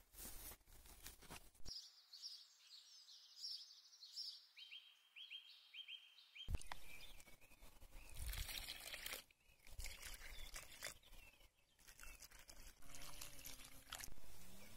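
A bird singing a run of short repeated high notes that step down in pitch partway through, followed by faint rustling and crunching noises.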